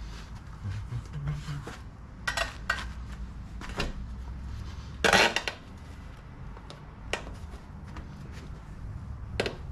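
Metal tire spoons clinking and scraping against a motorcycle wheel rim while levering a tire bead on, in scattered knocks with one louder rasping burst about five seconds in.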